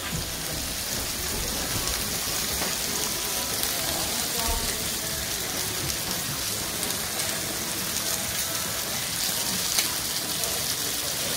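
Fish and crayfish tails sizzling on a gas grill's flat hotplate: a steady, even hiss.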